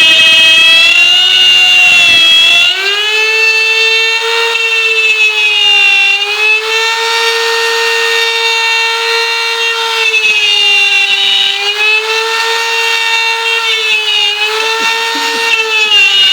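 Electric wood router running at high speed, a loud whine cutting a circle in wood. The pitch sags while the bit bites, with a rougher cutting noise under it, then climbs and lightens about three seconds in. It dips briefly a few more times as the bit takes load.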